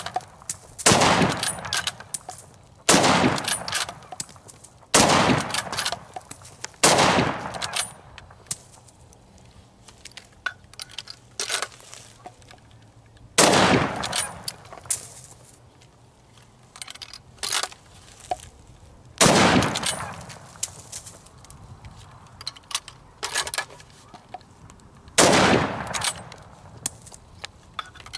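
Hunting rifle fired in rapid aimed shots at bottle targets: four shots about two seconds apart, a gap of some six seconds with small clicks, then three more shots about six seconds apart. Each shot is sharp with a trailing echo.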